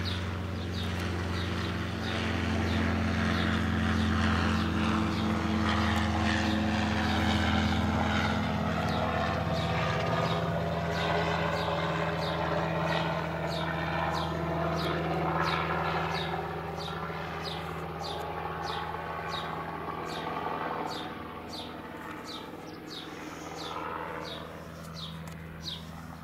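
Robinson helicopter flying low overhead, a steady drone of rotor and engine. It is loudest in the first half, then fades as it moves away.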